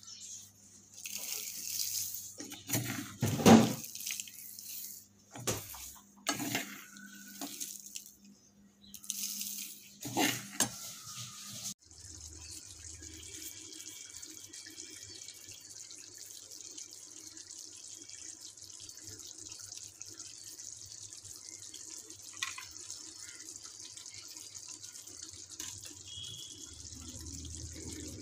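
For about the first twelve seconds, a metal ladle scrapes and scoops through whole spices (coriander seeds, cinnamon sticks, sesame seeds) in a metal pan, making irregular rattles and scrapes. It then changes abruptly to chicken curry simmering in a frying pan with a steady sizzling hiss, and a single light clink in the middle.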